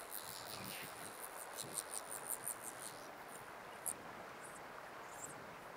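Faint, irregular scratchy rasps of fly line being stripped in by hand over the rod, with a few brief high chirps about four and five seconds in.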